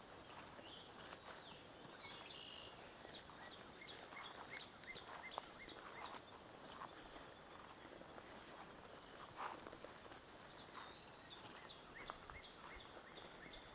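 Faint outdoor ambience: soft footsteps on a grassy track, with short high bird chirps scattered throughout.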